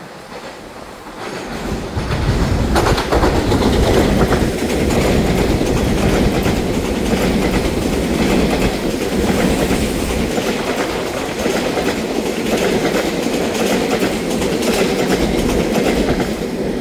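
Twelve-car EMU3000 electric multiple unit express passing close by, its wheels clicking over the rail joints in a steady clatter. The sound swells in about two seconds in, stays loud, and starts to fade right at the end.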